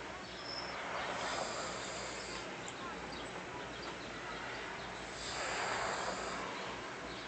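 A person breathing slowly close to the microphone: two breaths swell and fade about four seconds apart over a faint steady hiss.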